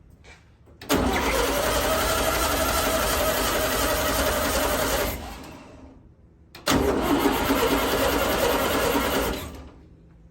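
A 1964 Volkswagen Beetle's air-cooled flat-four being cranked over on the starter in two attempts of about four and three seconds, each dying away at the end, on a gasoline prime while the fuel pump is not delivering fuel.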